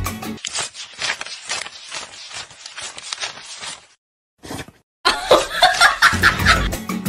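Rapid, pulsing bursts of laughter that break off into a brief silence about four seconds in, followed by a louder stretch of laughter or voice near the end.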